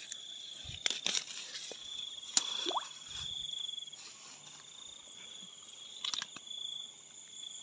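Night insects trilling steadily, with rustling and several sharp clicks as wet grass stems are handled; the loudest is a single sharp click a little over two seconds in.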